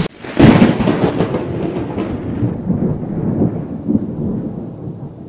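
A loud crash about half a second in, then a crackling rumble that slowly dies away over several seconds.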